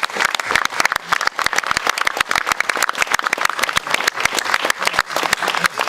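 Audience applauding, with many hands clapping densely.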